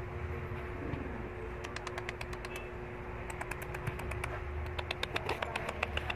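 Shih Tzu's claws clicking on a tiled floor: quick, uneven taps starting about a second and a half in and growing more frequent toward the end, over a faint steady hum.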